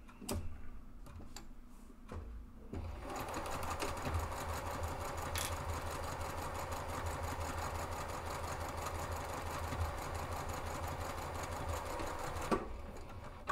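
Juki sewing machine stitching a straight seam through interfaced fabric panels. A few light clicks come first, then the machine runs at a steady speed for about ten seconds and stops near the end.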